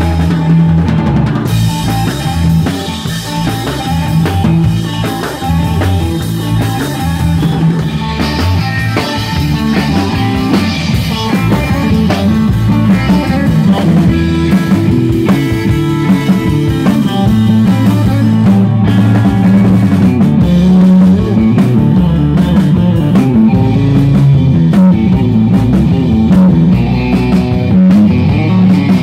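Live surf rock band playing loudly: a drum kit keeping a steady beat, with electric bass and electric guitar.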